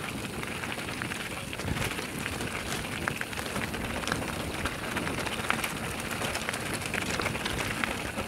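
Mountain bike riding fast down a gravelly dirt trail: steady tyre rush over the ground with many small clicks and ticks from stones and the rattling bike.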